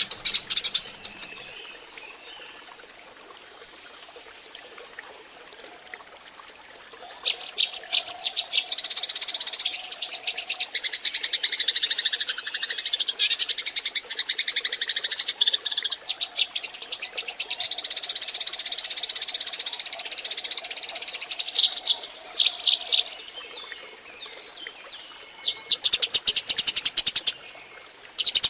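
Eurasian tree sparrows chirping in a dense, rapid chatter of many overlapping calls. The chatter comes in long bursts with quieter stretches between them, the longest running from about a quarter of the way in to about three-quarters through.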